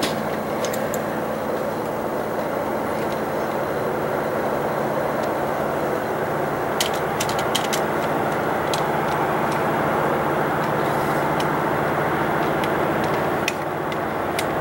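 Diesel freight locomotives approaching from a distance: a steady engine drone and rumble that grows slowly louder, with a few short sharp clicks about seven seconds in.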